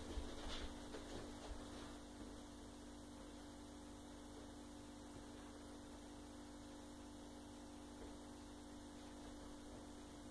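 Quiet room tone with a steady low electrical hum, and a few faint knocks in the first second or two.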